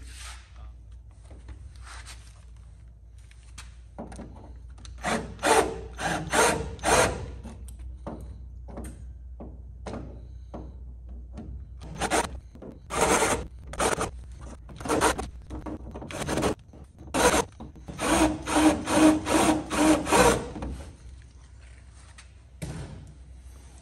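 Handheld cordless power tool working the aluminium fuselage structure, run in about a dozen short bursts, with a quicker run of about three a second near the end.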